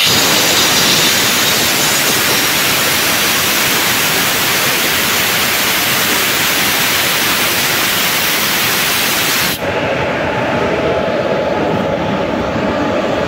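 Drain cock on a diesel locomotive's centrifugal dust collector blowing down, a white jet of air and moisture with a loud, steady hiss. About nine and a half seconds in, the hiss cuts off abruptly as the drain shuts, leaving the locomotive's lower, steady running noise.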